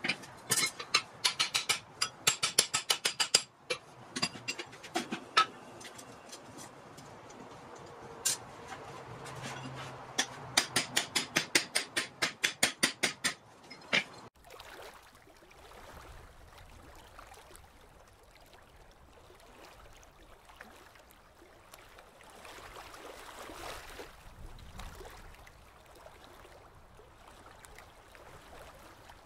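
A hand hammer striking a red-hot Atlantic 33 steel billet at the anvil while a rounding-hammer head is forged, in quick runs of about three to four blows a second with a few single blows between. The blows stop about halfway through, leaving only faint steady noise.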